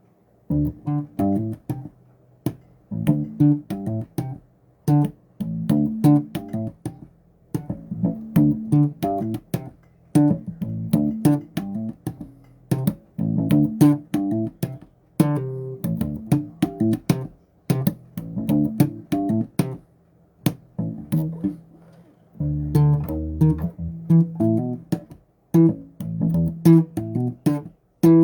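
Solo bass guitar played in runs of plucked notes, with short pauses between phrases.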